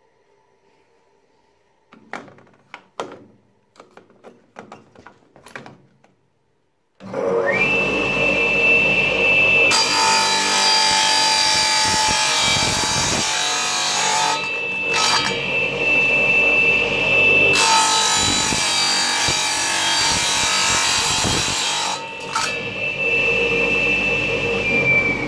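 A few light knocks of handling, then an electric wet tile saw starts about seven seconds in and runs with a steady high whine. Its diamond blade grinds through a plastic TV remote control in two long, loud stretches, with the motor whining on alone between and after them.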